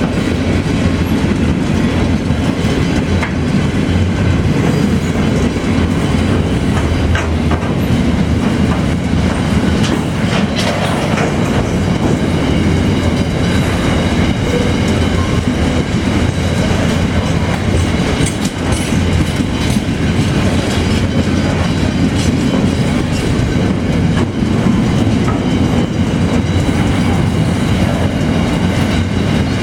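Pacific National freight train rolling past in a steady loud rumble, its wagon wheels clicking over the rail joints.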